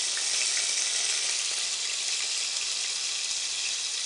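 Thin slices of marinated beef frying in hot oil in a pot: a steady high sizzle with a few faint pops.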